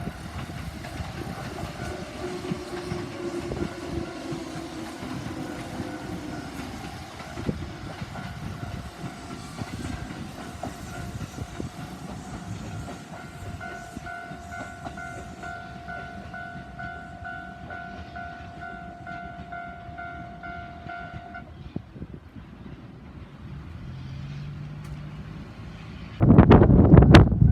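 Japanese railway level-crossing warning bell ringing in a steady repeated pattern while a train passes with clattering wheels. The bell stops about three-quarters of the way through. Near the end a much louder burst of noise starts abruptly.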